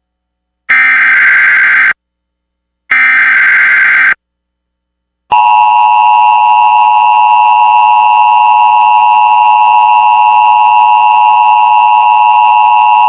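Emergency Alert System broadcast on NOAA Weather Radio: two short, harsh, buzzing bursts of digital data tones (the SAME header that encodes the alert), about a second apart, then a loud steady alarm tone lasting about eight seconds, the attention signal that precedes the spoken tornado watch.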